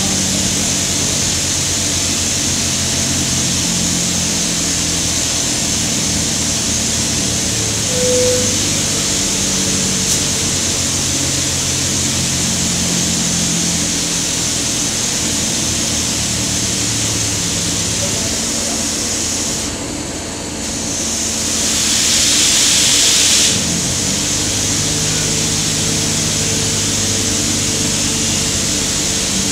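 Drill-floor machinery on an offshore drilling rig running with a steady hum and hiss, the hum shifting in pitch every second or two. A short tone sounds about eight seconds in, and a louder rushing hiss rises for a couple of seconds about two-thirds of the way through.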